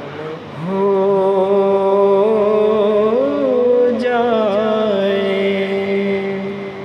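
A singing voice holds one long closing note of an Urdu devotional song. It makes a brief wavering turn in pitch about three seconds in, then holds again and fades toward the end.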